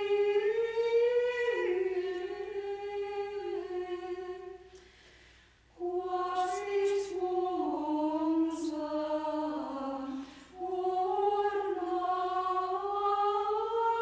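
A choir of nuns chanting in unison, slow held notes that step up and down in pitch. The chant breaks off for a breath about five seconds in, resumes, and pauses briefly again around ten seconds.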